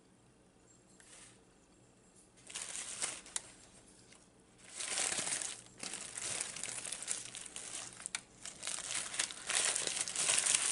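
Paper burger wrapper crinkling as it is unfolded. A short burst of rustling comes about two and a half seconds in, then continuous crinkling from about halfway through.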